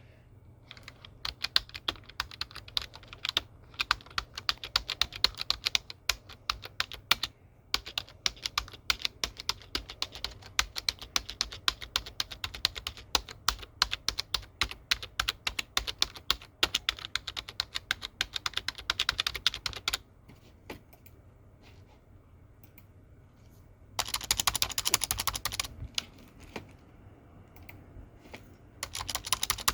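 Typing on a computer keyboard: a fast, irregular run of key clicks for about twenty seconds, then a pause with only a few stray keystrokes. A short dense flurry of keystrokes follows, and typing picks up again near the end.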